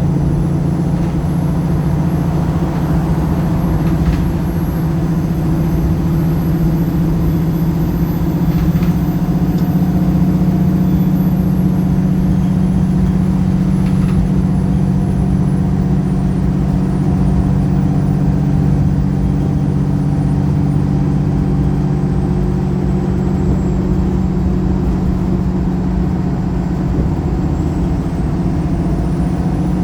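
Pulsar single-decker bus's diesel engine running steadily under way, heard from inside the bus as an even low drone, with a few faint rattles and a faint high whine that dips and rises.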